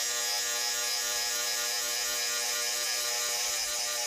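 Bosch GWX 18V-15 SC cordless mini angle grinder with a multi-material cutting disc running steadily as it cuts through 10 mm ribbed steel rebar: a steady motor whine of several tones over a loud grinding hiss. The tool is working on a nearly drained battery and has begun warning that the charge is low.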